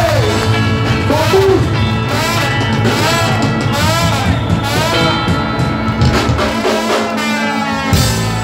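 Live ska band playing an instrumental passage, a short melodic figure rising and falling over and over above a steady bass and drums. Near the end the low end drops out for a moment and the band comes back in with a hit.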